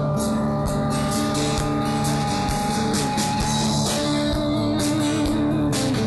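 A live band playing a rock song: acoustic and electric guitars over bass and a drum kit keeping a steady beat.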